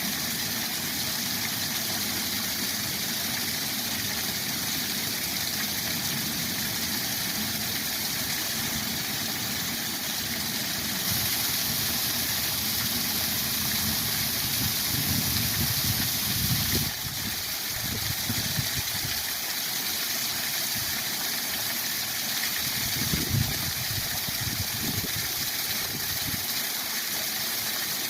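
Waterfall rushing steadily, with a low rumble that swells irregularly, most strongly around the middle and again a little before the end.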